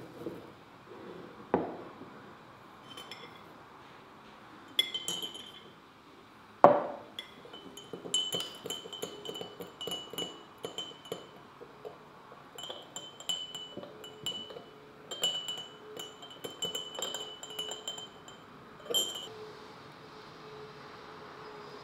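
Teaspoon stirring tea in a small tulip tea glass, clinking rapidly against the glass with a bright ring, in two runs broken by a short pause. A few single knocks and clinks of glass and crockery on the table come before, the sharpest one about two-thirds of the way to the stirring.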